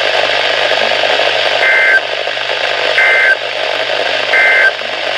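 Weather radio broadcast hissing with static, broken by three short two-tone digital data bursts about 1.3 s apart. These are the EAS/SAME end-of-message bursts that close a flash flood warning.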